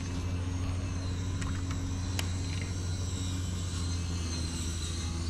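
Boat motor running at a steady speed: a constant low hum with a thin high whine over it, and a single sharp click about two seconds in.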